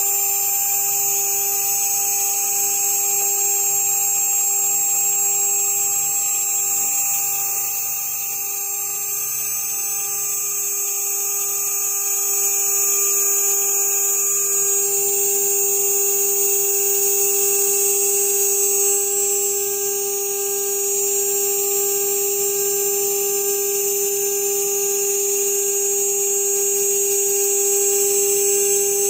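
CNC router spindle running at 12,000 RPM, its 3 mm carbide endmill milling half-inch polycarbonate: a steady whine over a high hiss, dipping slightly in loudness twice.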